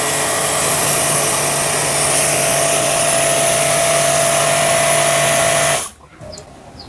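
Orion Superjet 100S electric pressure washer running, its pump humming under a loud steady hiss of the water jet from a multifunction adjustable nozzle. The spray and pump cut off suddenly near the end.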